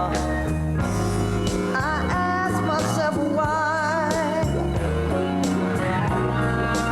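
Background music: a song with a singing voice wavering in vibrato over a steady bass line.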